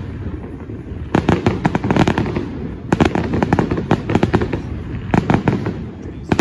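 Aerial fireworks shells bursting in rapid volleys of sharp bangs and crackling. The volleys come in clusters, about a second in, around three seconds, around five seconds and again at the end, with quieter gaps between.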